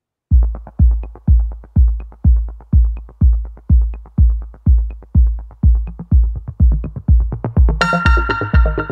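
Electronic dance music with a drum-machine beat: a steady kick drum about two times a second, joined by synthesizer chords near the end.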